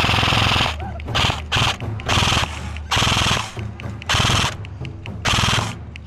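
Airsoft electric machine gun firing a string of short automatic bursts, about seven in all, each a fast rattle lasting under a second.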